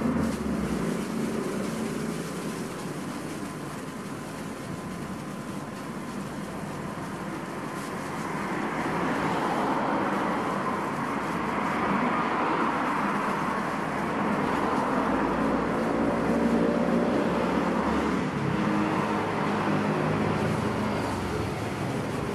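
Road traffic noise: a steady rush of passing vehicles that grows louder about eight seconds in, with a low engine rumble midway.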